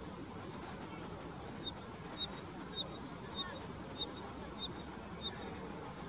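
Upland pipit singing a repetitive song: a short lower note followed by a longer, higher one, repeated a little under twice a second for about four seconds, beginning nearly two seconds in.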